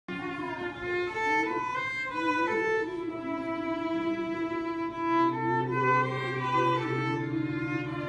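Small string ensemble of violins, cello and double bass playing a piece together: a bowed melody of held notes over a lower part, with a low note sustained from about halfway.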